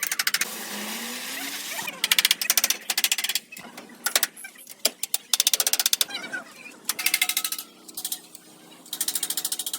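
Short bursts of rapid mechanical hammering, many blows a second, from a pneumatic hammering tool working sheet metal. The bursts start and stop repeatedly, with a steadier hiss in the first two seconds.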